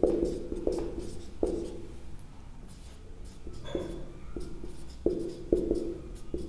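Writing by hand: a run of separate strokes, each starting suddenly, as a table is drawn out.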